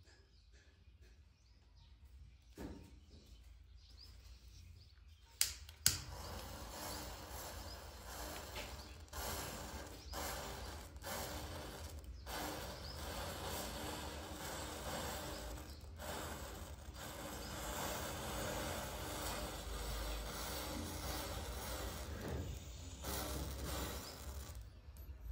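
Match heads flaring one after another along a matchstick chain fuse, giving a steady crackling fizz. Two sharp pops come about five and a half seconds in, half a second apart.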